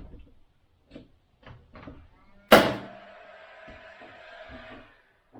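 Several light taps and knocks, then one loud sharp bang about two and a half seconds in that rings on with a steady tone for about two seconds, from a tool striking while soffit panels are being fastened overhead.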